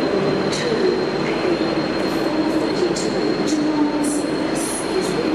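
V/Line N-class locomotive-hauled passenger train with its FN04 carriage set rolling past while departing, a steady rumble with wheels clicking over rail joints and brief high wheel squeals.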